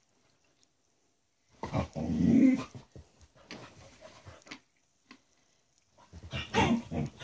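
A dog chewing a squeaky chicken toy: squeaks from the toy mixed with the dog's growling, in a loud bout about one and a half seconds in and another near the end.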